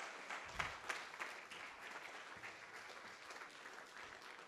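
Faint, scattered clapping from a congregation, thickest in the first second or so and thinning out after.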